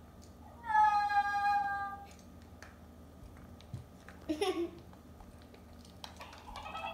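Electronic plush toy's sound effect, set off by tipping it over: one high, held squeal whose pitch falls slowly, lasting about a second and a half, starting about half a second in.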